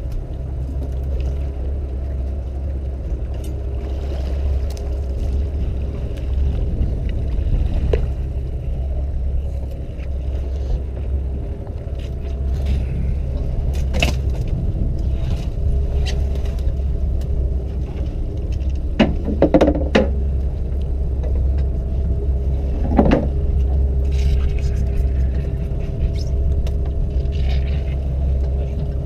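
Fishing boat's engine running steadily with a low rumble. Over it come several knocks and thuds as a large wreckfish is hauled over the gunwale and onto the deck.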